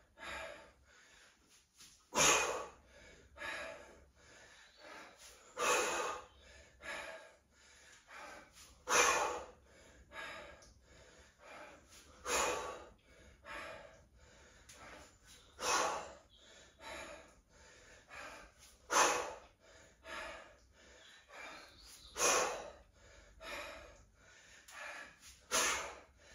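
A person breathing hard with exertion during a weights exercise, in a steady rhythm: a forceful exhale about every three seconds, with softer breaths between.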